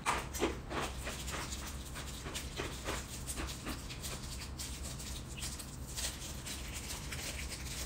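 Plastic onigiri wrapper crinkling and crackling as it is torn and peeled open by hand, a quick run of sharp crackles, densest at the start, with eating noises.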